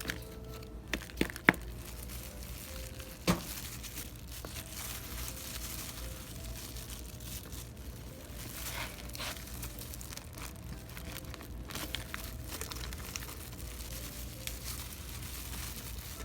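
Rustling and crinkling from hands working through potato plants and soil, with a few sharp clicks near the start and a louder snap about three seconds in.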